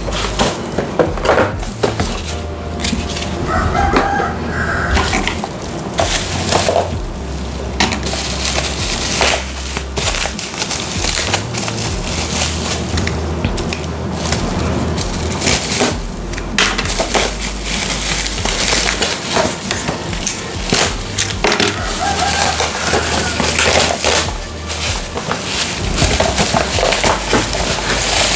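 Bubble wrap crinkling and crackling as it is slit with a box cutter and peeled off a cardboard model-kit box, over background music with low bass notes.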